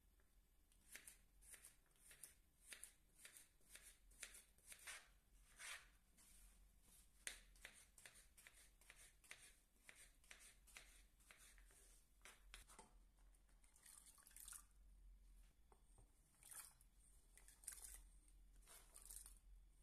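Faint knife strokes chopping carrots and potatoes on a bamboo cutting board, about two cuts a second. Near the end, diced vegetables drop off the board into a pot of water.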